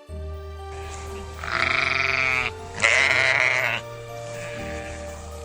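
Sheep bleating: two long, wavering bleats, one about a second and a half in and the next right after it, over steady background music.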